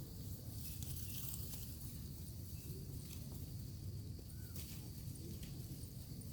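Outdoor ambience: a steady low rumble under a faint high hiss, with a few light scattered clicks and rustles.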